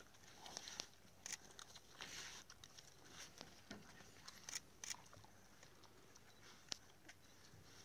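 African wild dogs tearing and chewing at a young impala carcass: faint, scattered crunches, rips and clicks.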